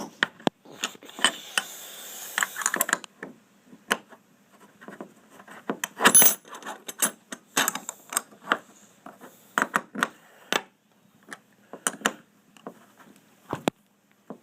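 Small metal hardware and a hand wrench clinking and clicking in irregular sharp clicks, with a busier rattle about a second in and the loudest clatter about six seconds in: a bolt and wrench being worked by hand to set an aluminum rivet nut (nutsert) without an air tool.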